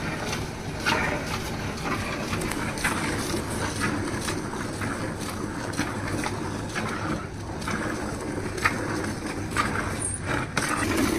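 Cow being milked by hand: repeated squirts of milk hitting a plastic bucket, roughly once a second, over a steady low background hum.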